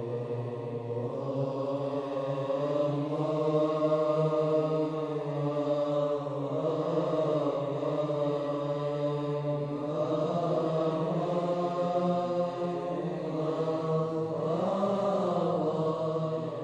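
Slow chanting held over a steady low drone, the melody moving in long sustained notes and shifting pitch now and then; it fades out at the very end.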